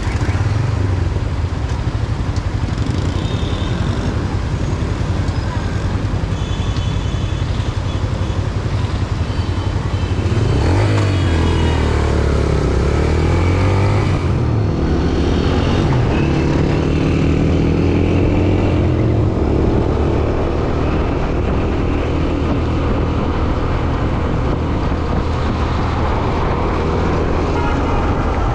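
Motorcycle engine running on the move, under steady wind and road noise on the microphone. The engine pitch rises and falls a few times near the middle.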